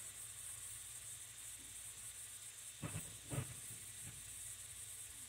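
Diced potatoes frying in oil in a skillet, giving a faint, steady sizzling hiss. Two short knocks come about three seconds in.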